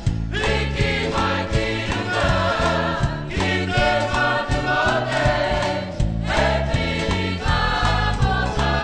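Background music: a choir singing a song over a steady, regular bass beat.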